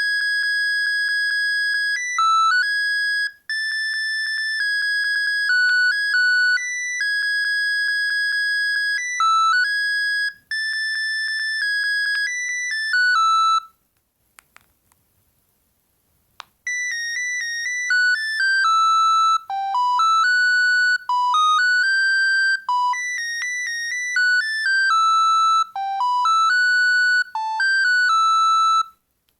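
Bird S296 mobile phone playing two high-pitched, single-voice ringtone melodies one after the other. There is a gap of about three seconds between them, with a couple of faint clicks in it.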